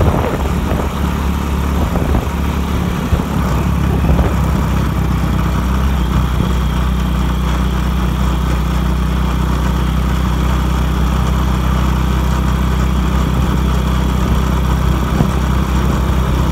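Vehicle engine running steadily while travelling along a road, with a constant low hum.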